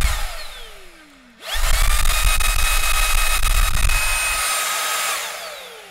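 Xiaomi Mijia cordless stick vacuum's motor whining as it is switched on and off: a run winding down with falling pitch in the first second, then a fresh spin-up about a second and a half in, a steady high whine for a few seconds, and a wind-down near the end. The vacuum is running normally on its repaired battery pack.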